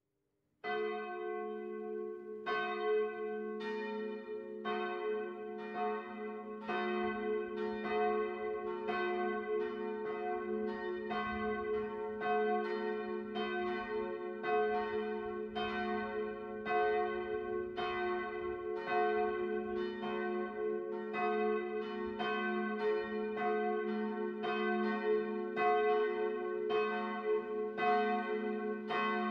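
Church bells ringing, strokes following each other about every half second to a second over a steady low hum, starting about half a second in.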